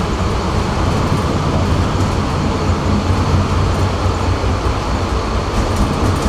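Tram running along the track, heard from on board: a steady low rumble of wheels and motors with rolling noise and no sudden events.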